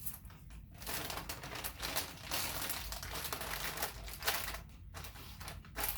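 Crinkling of a chip bag as a hand rummages inside it for chips: a dense run of crackling lasting a few seconds, with a few short crackles near the end.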